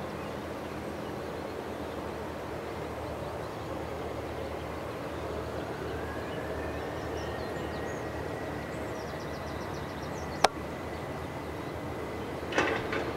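Distant Boeing 737-800's CFM56-7B jet engines spooling up to takeoff thrust: a steady rumble, with a whine that rises in pitch about five seconds in and then holds steady. A sharp click sounds about ten seconds in.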